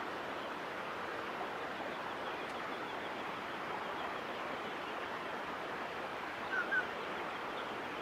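Steady rushing background noise, with two quick, short chirps from a grey shrike-thrush at the nest near the end.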